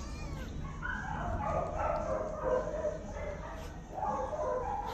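Domestic cats meowing over one another: a short falling meow at the very start, then long, rough, overlapping meows with a short lull just before the end.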